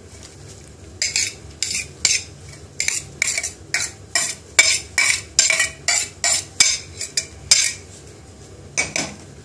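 Metal utensil scraping chopped onion out of a metal dish into a stainless steel pot: a quick run of short scrapes, about three a second, stopping about seven and a half seconds in, with one more near the end.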